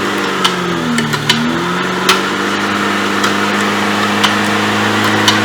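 Off-road car's engine revving up and down, then settling to a steady speed after about two seconds, with a few sharp knocks and clicks scattered through.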